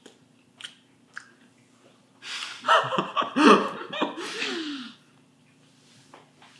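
A person's loud, breathy vocal outburst of about two and a half seconds, starting about two seconds in, after a few faint clicks.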